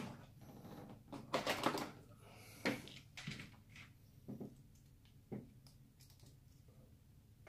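Small metal hook pick scraping and clicking against a bearing in an RC crawler's portal axle housing as the bearing is pried out: a cluster of scrapes about a second in, then a sharper click and a few light ticks.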